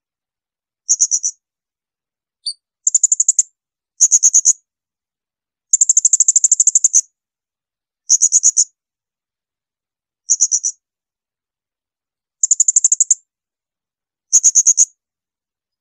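Blue-crowned hanging parrot (serindit) giving shrill, high-pitched trilled 'tembakan' calls. There are about eight short bursts of rapid chips, one longer burst near the middle, with silent gaps between them.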